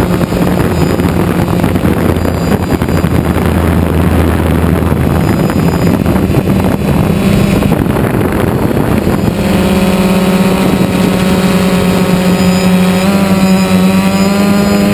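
Quadcopter drone's motors and propellers buzzing, heard close up from the camera mounted on the drone. The sound is rough and noisy at first, then about nine seconds in it settles into an even hum with a steady pitch.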